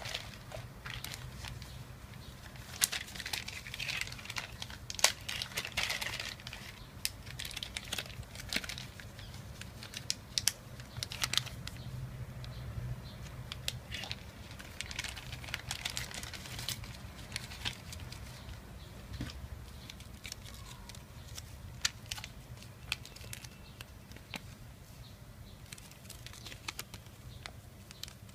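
Plastic parts bags crinkling and rustling as they are handled, with scattered sharp clicks and taps. The rustling comes in bursts, busiest a few seconds in and again around the middle.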